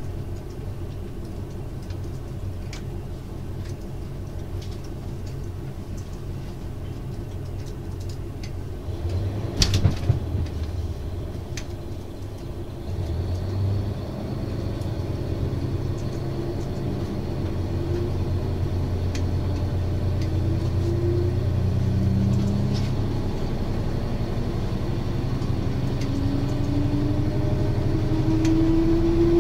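KiHa 182-501 diesel railcar's DML30HSJ engine running steadily, with a short clatter about ten seconds in. From about thirteen seconds the engine note grows louder and climbs steadily in pitch as the car accelerates.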